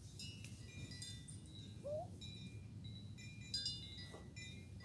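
Scattered light chiming notes, ringing at a few recurring high pitches, over a steady low hum, with a single short wavering call about two seconds in.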